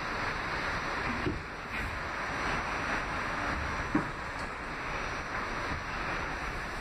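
An R46 subway car running at speed, heard from inside: a steady rush of wheels on rails and air, with a couple of short knocks, the sharpest about four seconds in.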